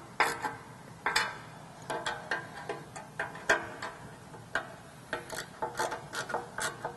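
Socket ratchet clicking in short, irregular strokes as small nuts are tightened.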